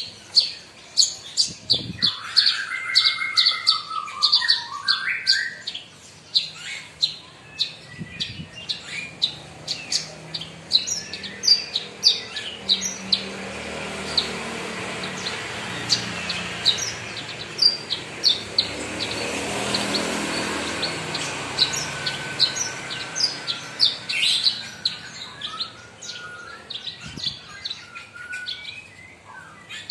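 Javan bush lark (branjangan) singing almost without pause: a fast run of sharp, high chirps, with a lower warbling phrase a couple of seconds in. A broad swell of background noise rises and fades around the middle.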